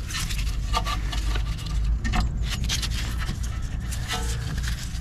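Rear brake caliper being worked over new brake pads onto its carrier: scattered light scrapes and clicks of the metal caliper against the pads and their retaining springs, over a steady low rumble.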